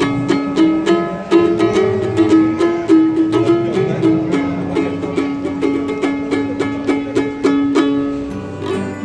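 A small wooden medieval-style lyre, its strings plucked by hand. It plays a repeating tune of about three notes a second over a held lower note.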